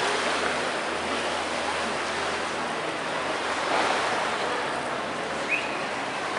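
Steady rushing noise of surf and wind on the beach, with one brief high sound about five and a half seconds in.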